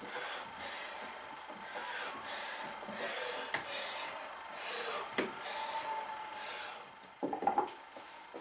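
Metal shoulder plane taking shavings off the wooden toe seat of a coffin-shaped smoothing plane: repeated scraping strokes with a few sharp clicks, then a short cluster of louder knocks near the end.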